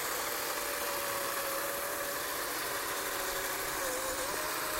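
Cordless DeWalt electric chainsaw running and cutting into a block of ice: a steady motor whine over the hiss of the chain, the pitch dipping briefly about four seconds in.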